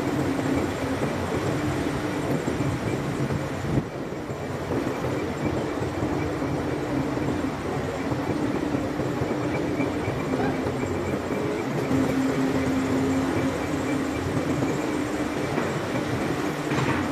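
Heavy port machinery running steadily, a dense rumble with a hum that comes and goes every few seconds, and a single knock about four seconds in.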